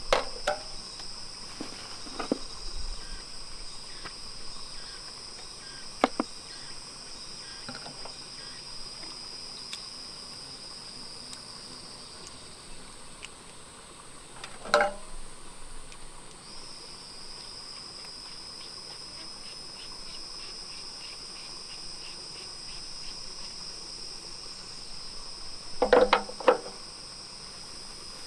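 Insects chirring in a steady high-pitched drone, with a few sharp metallic clinks of small engine fittings being handled and set down on the diesel engine's sheet-steel fuel tank. The clinks come singly at first, with a louder cluster near the end.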